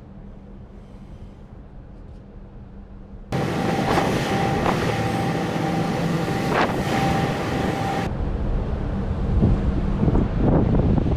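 Ship's machinery noise in abruptly cut clips: a low steady hum for about three seconds, then a sudden jump to loud machinery noise with a steady whine and a few sharp knocks, and a few seconds later a switch to loud low rumbling with wind on the microphone.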